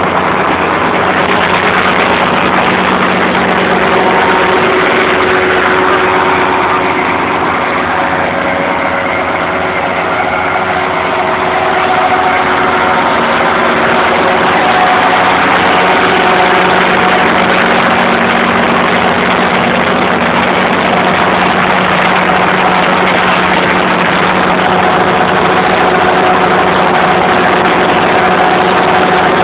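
Ferrari Fox ride-on front-deck mower running steadily under load as it cuts tall grass, a loud, even engine sound with the cutting deck going.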